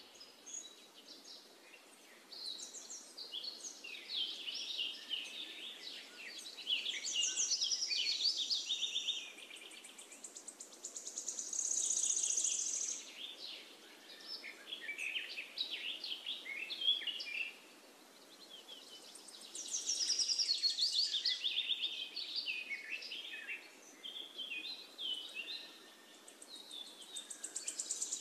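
Many birds chirping and trilling at once, a dense overlapping chorus of high calls that swells louder every several seconds.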